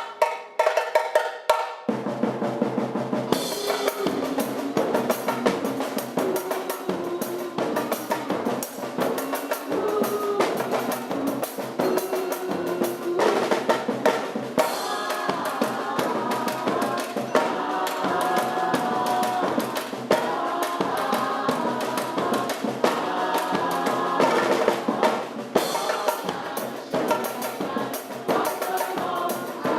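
Music with fast, busy drumming and a melody over it.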